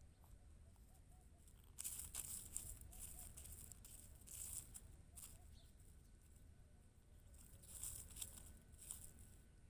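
Kitten scratching and digging in its litter, in a few short gritty bursts: the strongest about two seconds in, more around the middle, and again near the end.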